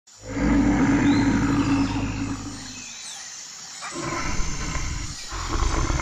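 Tiger growling and roaring: a long, deep, rough growl for the first three seconds, then two more growls after a short pause.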